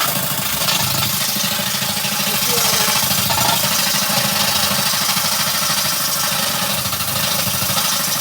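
Portable washing machine's motor running steadily, a low pulsing hum with a hiss of water and machinery over it.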